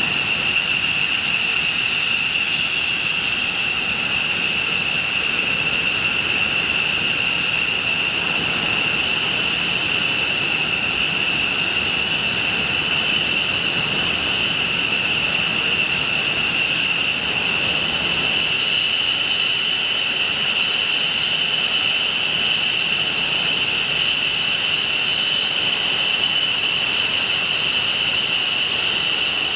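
Jet engine running with a steady high-pitched whine made of several tones over a rush of noise, the pitch creeping up slightly about halfway through.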